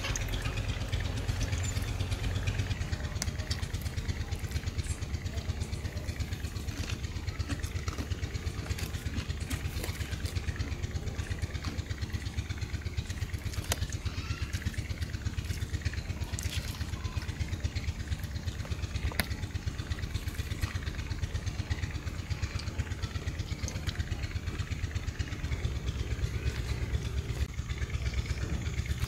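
An engine running steadily in the background, a low, even throb that does not change, with a few faint clicks over it.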